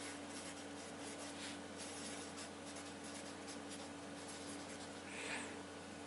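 Felt-tip marker writing on paper: faint, irregular scratching strokes.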